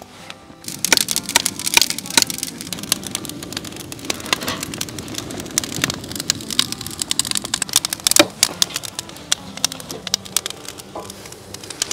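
Dry twigs and brush crackling and popping as they burn in a metal fire pit, a dense run of sharp cracks that starts about a second in.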